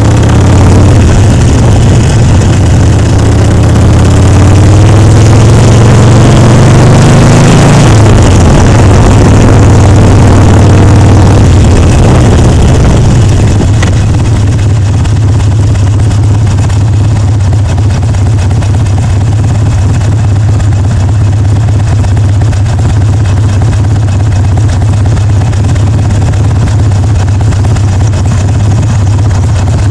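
Harley-Davidson Sportster Seventy-Two's 1200 cc air-cooled V-twin through loud pipes, climbing in pitch for the first several seconds with wind rushing past the microphone. The note then drops away as the bike slows, and for the second half the engine idles steadily with the bike stopped.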